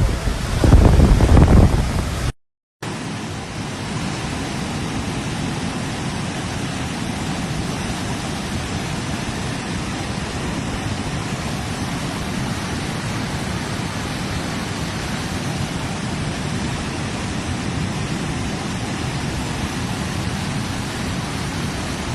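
Floodwater rushing in a steady, even torrent. In the first two seconds, gusts of wind buffet the microphone over the water. After a brief cut, the rush runs on unchanged.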